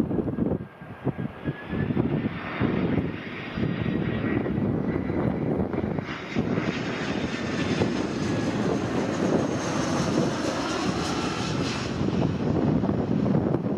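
Airbus A321's CFM56 turbofan engines on final approach, flying low past: a jet roar that builds and holds, with faint whining tones that slide down in pitch as it goes by. Wind buffets the microphone in the first couple of seconds.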